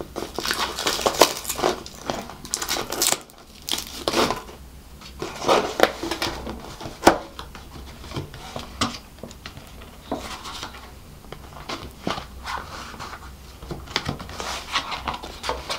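Kraft paperboard takeaway box being unwrapped by hand: stiff paper flaps pried up and folded open, with irregular rustling and crackling. The sharpest crackle comes about seven seconds in.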